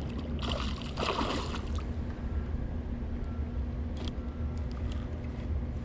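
Water splashing for about a second, starting half a second in, over a steady low rumble and hum; a hooked carp is being played at the surface close to shore.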